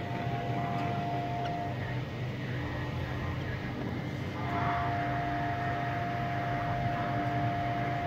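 Steady machine hum with a held, higher whine that drops out about two seconds in and comes back about halfway through.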